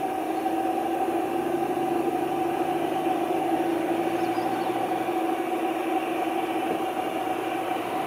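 ZDM-3 narrow-gauge diesel locomotive's engine running steadily as it slowly hauls the train past.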